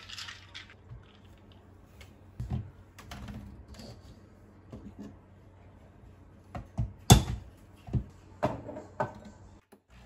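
Clicks and knocks of handling at a Breville BES870 espresso machine: a portafilter being fitted into the group head and a glass measuring cup set down beneath it. The loudest is a sharp knock about seven seconds in, with a quick run of smaller knocks just after.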